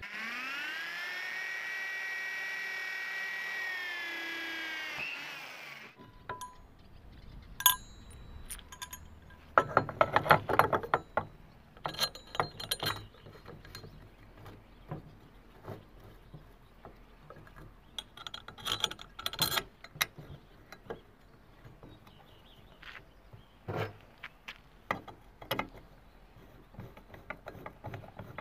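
An electric drill whines up to speed, runs steadily for about five seconds, then winds down. After it come irregular metallic clinks and knocks, some in quick clusters, as a drilled steel-bar puller is fitted onto an aluminium scooter engine crankcase and a bolt is turned with a socket wrench.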